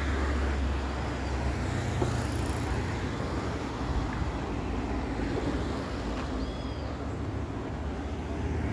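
Street ambience with road traffic: a steady rumble of vehicle engines and tyres, heaviest in the first couple of seconds.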